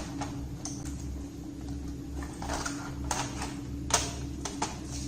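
Hand handling of plastic laptop parts as a piece is pushed into the hard-drive caddy: light scraping with scattered sharp clicks, the loudest about four seconds in. A steady low hum runs underneath.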